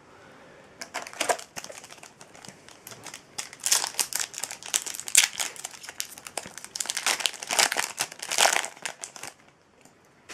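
Foil wrapper of a Yu-Gi-Oh booster pack being torn open by hand, crinkling and crackling in irregular fits, starting about a second in and stopping shortly before the end.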